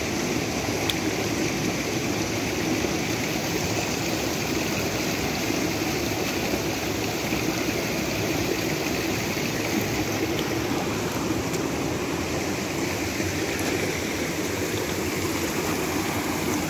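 Water flowing with a steady rushing sound.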